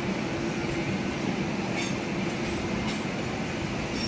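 Passenger train coaches rolling past along a platform: a steady rumble of wheels on the track, with a couple of sharp clicks about two and three seconds in.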